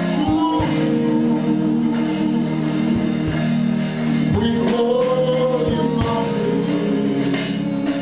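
Live gospel worship music: held chords with scattered drum hits, and a voice singing a long note over them about midway through.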